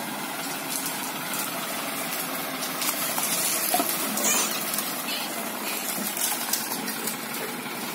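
Small farm tractor's engine running steadily as it reverses a trailer loaded with firewood.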